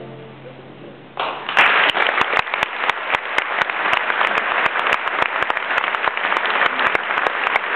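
The orchestra's last low note fades out. About a second in, a large audience breaks into applause, which gets fuller within half a second and goes on steadily, dense with individual claps.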